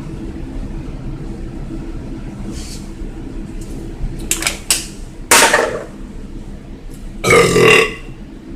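A man belching once, a loud, rough burp lasting under a second, about seven seconds in. Before it come a few clicks and a sharp hissing burst, over a steady low hum.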